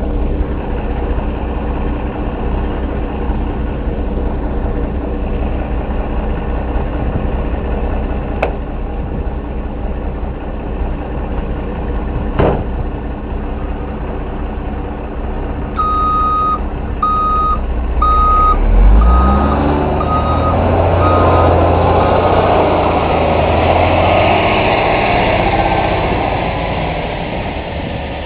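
Diesel engine running steadily. Past the middle, a dump truck's reversing alarm beeps repeatedly for about six seconds, then the truck's engine revs up and runs louder as it backs in to unload.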